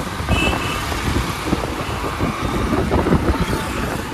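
Riding noise from a motorcycle on the move: the engine and road rumble run steadily under uneven wind buffeting on the microphone, with surrounding road traffic.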